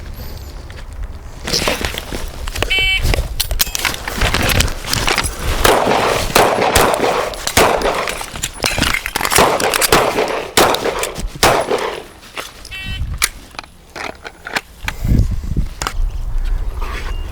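Gunfire from suppressed 5.56 rifles firing a timed qualification drill. Many sharp shots come in quick succession, with a quieter lull about twelve seconds in. A short electronic beep, like a shot timer, sounds about three seconds in and again around thirteen seconds.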